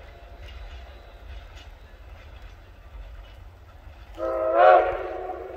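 Narrow-gauge steam locomotive whistle sounding about four seconds in. It is a loud chord of several notes that bends up in pitch as it opens, then holds steady. Before it there are only the faint rumble and clicks of the approaching train.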